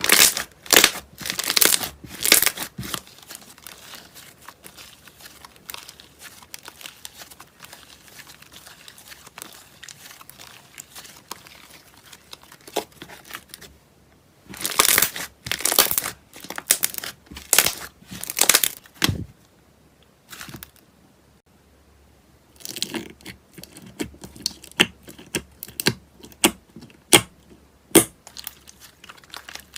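Crunchy slime being squeezed and pressed by hand, making clusters of crunching and crackling: loudest in the first few seconds and again around the middle, with a quieter stretch between, and a run of short sharp clicks toward the end.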